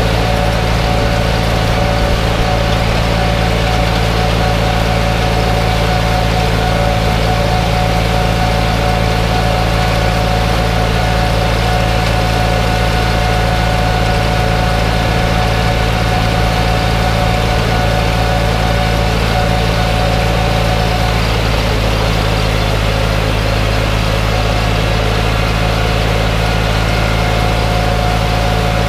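Tractor diesel engine running steadily at working speed, driving a PTO-powered Deutz-Fahr KM 22 CR drum mower through standing grass. A constant, even drone with a thin whine on top.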